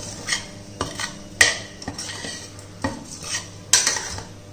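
Steel spoon stirring and scraping against the sides and base of a stainless steel pressure cooker pot, mixing moist little millet, dal and vegetables: irregular clinks and scrapes, the sharpest about a second and a half in and near the end.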